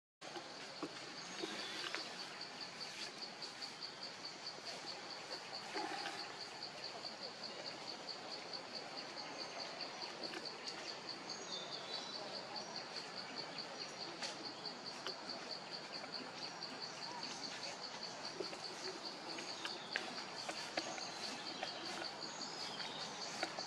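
An insect trilling steadily with a high, rapidly pulsing tone over forest ambience, with a few faint clicks.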